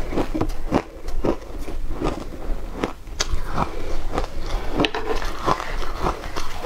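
Shaved ice crunching as it is chewed in the mouth, in a rapid, irregular series of sharp crunches a few times a second.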